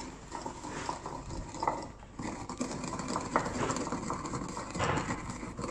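Cumin seeds being crushed in a stone mortar and pestle: the pestle grinds and scrapes around the bowl, with irregular knocks against the stone.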